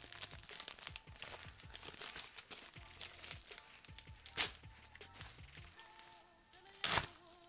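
Packaging being crinkled and torn open by hand, an irregular crackle with two sharper rips, about four and a half seconds in and, loudest, about seven seconds in.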